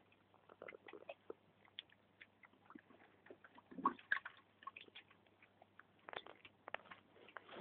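A dog biting and chewing crushed ice from a plastic bucket: faint, irregular crunches and clicks, with a louder knock about four seconds in as the bucket is jostled.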